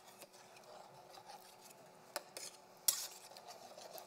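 Metal spoon stirring a thick blood-thickened sauce in a stainless steel sauté pan, scraping and clinking against the pan a few times. The loudest clink comes about three seconds in.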